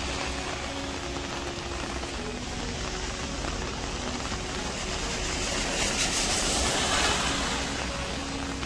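Steady hiss of rain falling on a wet street, swelling briefly about six to seven seconds in.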